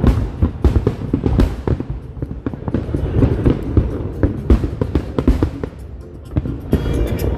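Fireworks going off in a rapid series of bangs and crackles, with music playing underneath. There is a short lull about six seconds in, then a burst of crackling.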